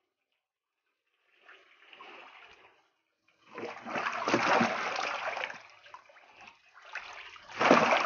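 Water splashing and sloshing in a galvanized metal tub as a plastic colander is swept through it among thrashing singhi (stinging catfish) and magur (walking catfish). Quiet for the first second and a half, faint splashing after that, then heavy splashing from about halfway, with the loudest splash near the end.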